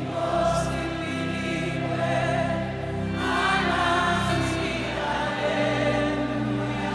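Choir and congregation singing a slow gospel worship song together over sustained instrumental chords.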